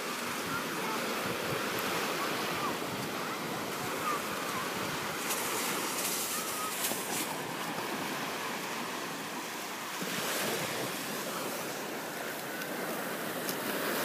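Small waves breaking and washing up a sandy beach in a steady wash, with wind buffeting the microphone.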